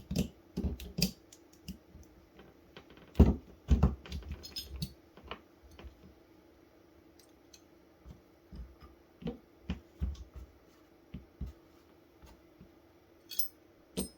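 Irregular clicks, taps and knocks of small tools and metal parts being handled while pushing the trigger-group pins out of a Daisy Powerline 880 air rifle, with two louder knocks about three and four seconds in. A faint steady hum runs underneath.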